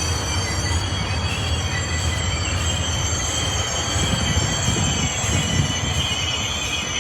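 Amtrak California Zephyr passenger train rolling past, its steel wheels squealing in several steady high tones over a continuous rumble of the cars.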